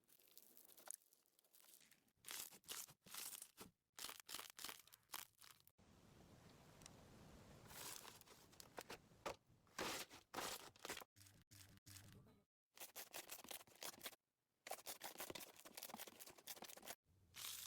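Slime being handled by hand: a quiet string of short crackles, mostly in quick clusters with gaps between, and one longer stretch of continuous crackle a few seconds in.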